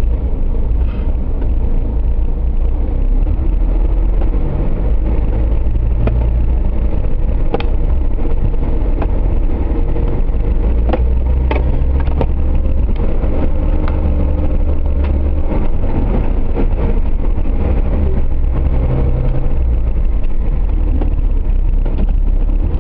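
Suzuki Jimny off-road 4x4 engine running steadily under load, with scattered sharp clicks and knocks.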